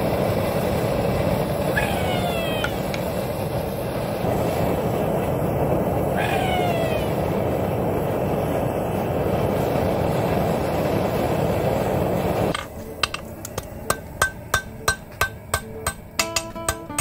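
Homemade forge's burner running with a steady rushing noise, with two short falling tones over it. After about twelve seconds it cuts to a hammer striking hot steel on a steel block anvil about twice a second, and acoustic guitar music comes in near the end.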